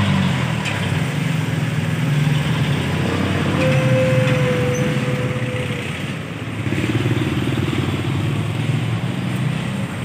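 Microwave oven running with a steady hum and no popping or crackling from the cavity: the arcing fault has been repaired. Motor traffic including motorcycles passes on the street, with one engine note held for a couple of seconds midway.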